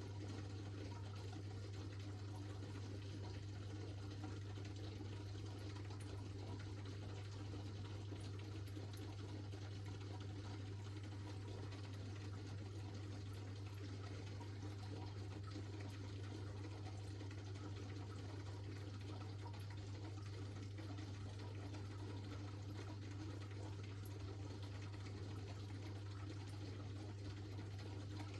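Aquarium filter running: a steady low hum with water trickling and splashing into the tank.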